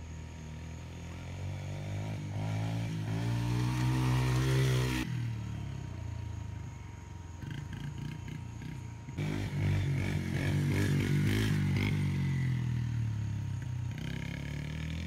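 Small dirt bike engine running as it is ridden, its pitch climbing as it revs up over the first few seconds, then breaking off sharply about five seconds in. It comes back loud about nine seconds in and then winds down, falling in pitch.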